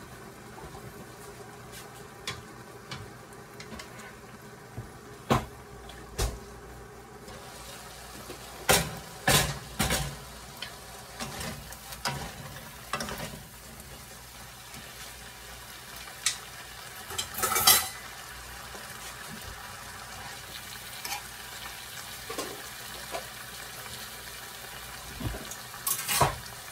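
Green vegetables sizzling and steaming in a nonstick frying pan, with a wooden spatula knocking and scraping against the pan as they are stirred. Scattered sharp knocks, the loudest about 17 seconds in and another near the end.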